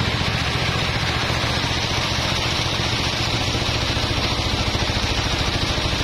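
Band sawmill's drive engine running steadily, a low drone with a fast, even pulse.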